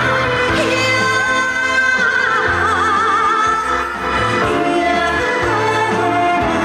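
A woman singing a song with musical accompaniment, holding long notes with a wide vibrato, the clearest about two to three and a half seconds in, over a steady bass line.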